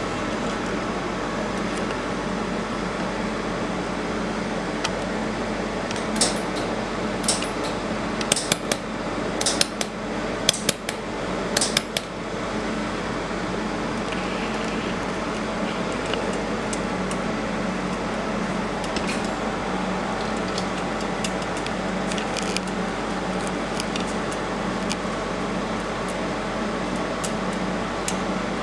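Steady hum of a fiber laser welding machine's cooling fan, with a cluster of sharp clicks about six to twelve seconds in and a few fainter clicks later.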